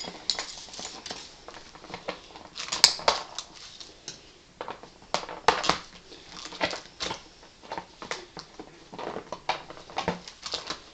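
Packing tape being cut and pulled off a cardboard box: irregular scrapes, clicks and crackles of the tool and tape against the cardboard.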